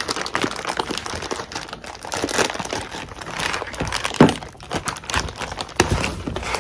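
Packaging crinkling and rustling as boxed and bagged products are handled, with scattered clicks and a sharper knock about four seconds in.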